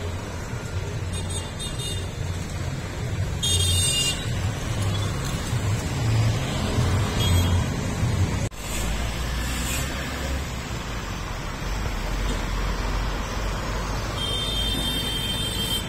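Street traffic: motor vehicles passing with a steady low engine rumble, and a short horn toot about three and a half seconds in. The sound breaks off abruptly about halfway through, then the traffic continues.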